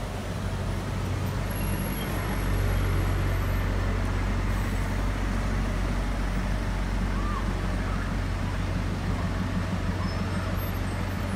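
Road traffic running past: a steady low rumble of vehicle engines and tyres, getting a little louder about two seconds in.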